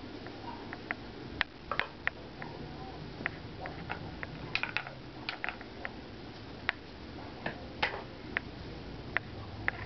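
Scattered sharp clicks and small taps at irregular intervals, over a low steady hum.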